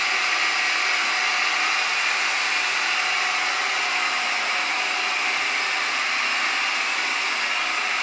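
Hoover ONEPWR FloorMate Jet cordless wet-dry floor cleaner running on its high setting: a loud, steady whir from its motor that does not change.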